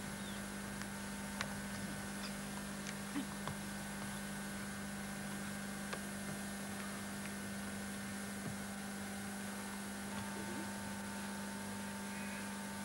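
Steady electrical hum over an even hiss, with a few faint clicks.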